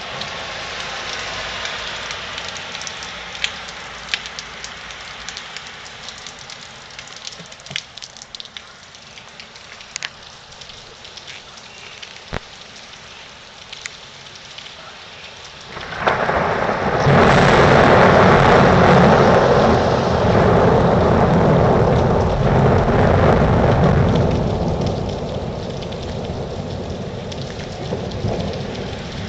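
Hail falling, an even patter with scattered sharp clicks of stones striking, then about halfway a sudden loud rumble of thunder that holds for several seconds and slowly fades.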